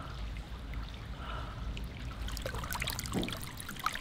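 Hot-spring water pouring from a wooden spout into a bath pool, a steady trickle and splash that turns close and crisp about two seconds in.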